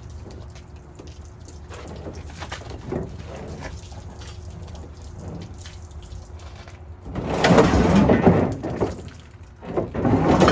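Water splashing and gushing out of an old refrigerator as it is tipped during loading, loudest in a burst about seven seconds in and again near the end, over a low steady rumble.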